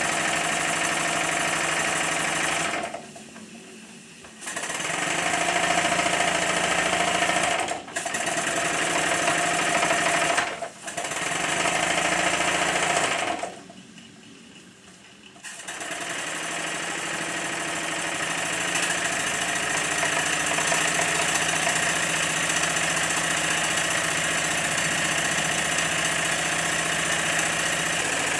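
Live steam model traction engine running on steam, stopping briefly twice (about three seconds in and about thirteen seconds in) with short catches near eight and eleven seconds, then running steadily.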